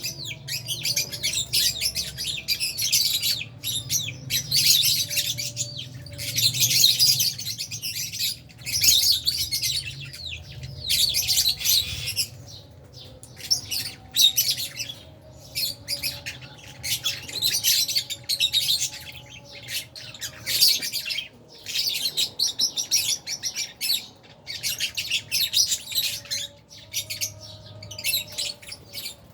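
A colony of lovebirds, Fisher's lovebirds among them, chattering: shrill, overlapping chirps and squawks in rapid bursts that keep up with only brief gaps, over a faint steady low hum.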